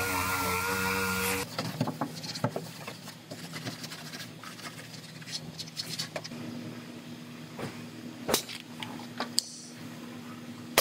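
A handheld power tool runs with a steady whine and shuts off about a second and a half in, followed by scattered light clicks and knocks.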